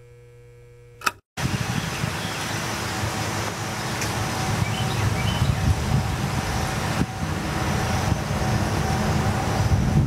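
A short electronic logo sting, a steady hum with a glitchy crackle, cuts off about a second in. It gives way to a steady outdoor low rumble and hiss with a few faint high chirps near the middle.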